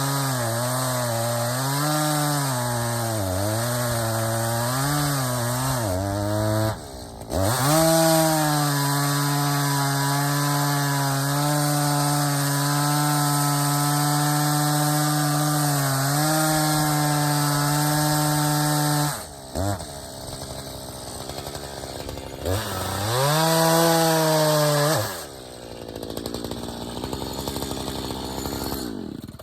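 Echo CS-590 Timber Wolf two-stroke chainsaw with a freshly sharpened chain on a 20-inch bar, cutting through hardwood maple. The engine pitch wavers under load at first and dips sharply about seven seconds in, then runs high and steady. It drops back after about twenty seconds, revs up once more, settles lower and cuts off right at the end.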